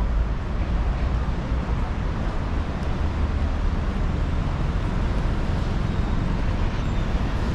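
Steady low rumble and hiss of outdoor background noise, strongest in the bass, with no distinct events.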